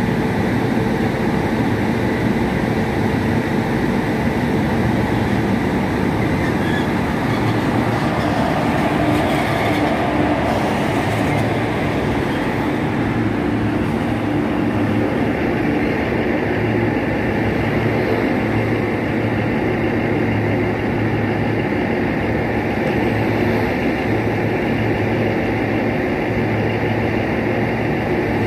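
WAP-4 electric locomotive and its passenger coaches rolling past close by as the express pulls into the station: a steady rumble of wheels on rail.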